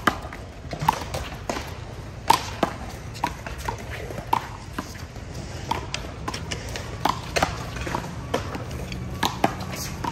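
Rubber handball slapped by hand and bouncing off the concrete wall and court during a rally: an irregular string of sharp smacks and knocks, about two or three a second, mixed with shoe scuffs. One of the smacks, about two seconds in, is louder than the others.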